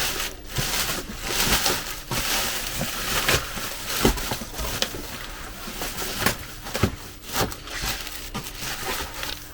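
Shipping packaging being handled: rustling of plastic bag and cardboard with irregular knocks and clicks.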